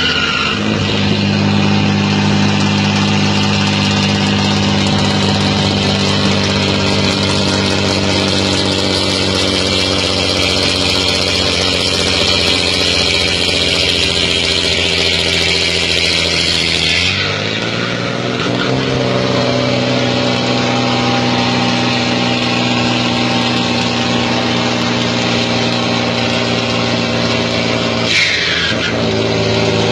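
Turbocharged diesel engine of a Mercedes-Benz truck running at steady high revs with a comb in the turbo intake, giving a loud whistle over the engine's drone. About halfway through the revs drop to a lower steady speed and the whistle fades; near the end a short whistle falls in pitch.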